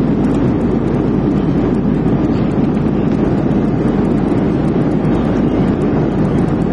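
Steady airliner cabin noise: an even, loud rush of engine and airflow sound with no change in level.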